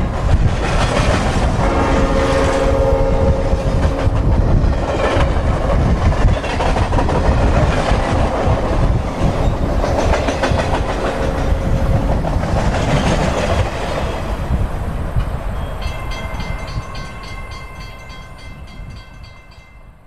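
Synthesized Nathan P5A five-chime train air horn, a 'mixed cast' set, sounding on a simulated passing train. The horn chord is heard about 2 to 5 seconds in, under the rumble and clickety-clack of the train going by. A fast rhythmic ticking comes in near the end, and the whole sound fades away over the last few seconds as the train recedes.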